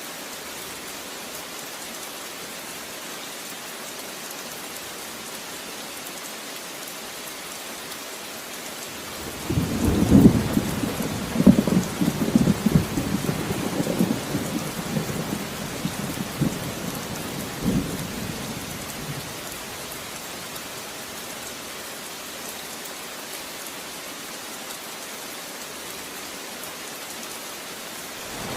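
Steady rain falling, with a roll of thunder about a third of the way in that rumbles for around ten seconds and fades back into the rain; another rumble starts at the very end.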